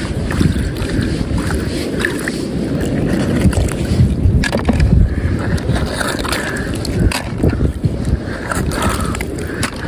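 Wind buffeting the microphone: a loud, uneven low rumble, with a few sharp clicks.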